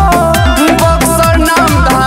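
Bhojpuri song music with a steady beat and deep bass notes that slide downward about twice a second, under a bending melodic line.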